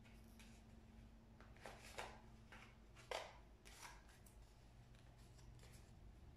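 Small pink-handled scissors snipping through a painted paper plate: a run of short, separate snips, the loudest about two and three seconds in.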